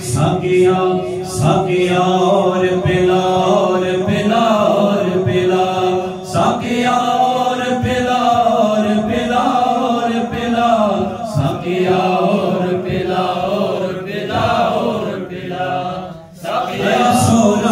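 A man singing a manqabat, a devotional song in praise of Imam Ali, into a microphone in long, drawn-out chant-like phrases, with a short break about sixteen seconds in.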